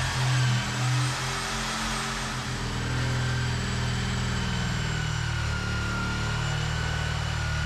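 Electric motors running steadily: a corded power tool cutting into the old wooden boat stringer, with a dust-extraction vacuum droning under it. Its steady whine dips slightly about halfway through as the tool takes load.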